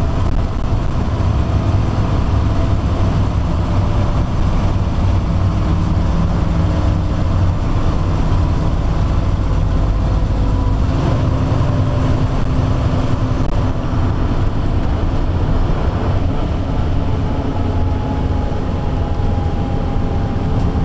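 Gardner 6LXB six-cylinder diesel engine of a Leyland Olympian bus pulling under way, heard inside the lower saloon: a loud, steady low drone with a few fainter higher whining tones that shift in pitch now and then.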